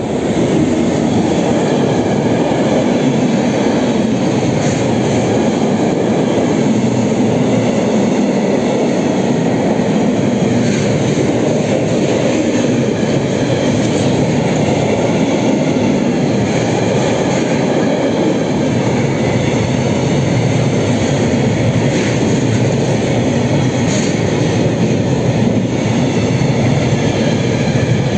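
A class 181 electric locomotive passes close as the sound swells at the start, then a long freight train of tank wagons rolls past: a loud, steady rumble of wheels on rail with a few sharp clicks.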